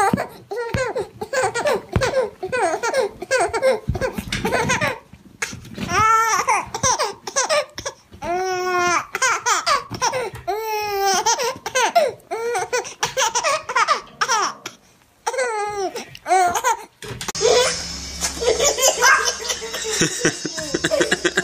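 A baby laughing hysterically in repeated bursts of giggles and high squeals. About seventeen seconds in, a second baby's laughter follows over a noisier room background.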